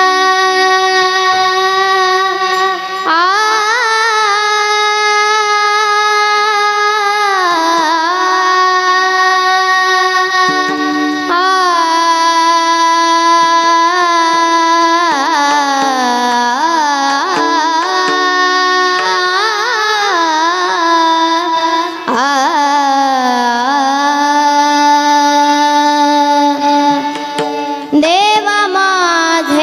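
Kirtan-style devotional melody: one clean sustained tune that holds notes and slides between them in ornamented glides, over a steady drone.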